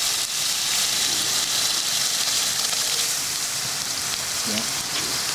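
Boiler steam injector (a 3/8-inch Penberthy) running: a steady hiss of steam with water spraying and spattering from its overflow. The injector is drawing water from the bucket and feeding the boiler while spilling a little water at the overflow.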